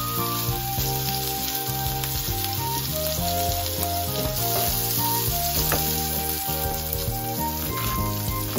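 Flour-coated pork rolls sizzling in hot oil in a frying pan, a steady frying hiss, with background music playing over it. A few knife strokes on a cutting board come near the end.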